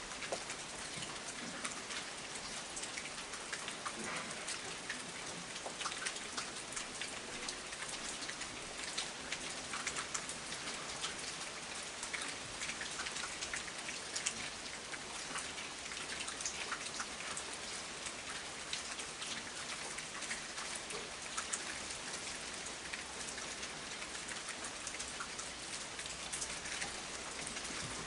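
Heavy rain falling steadily, with many small drop ticks.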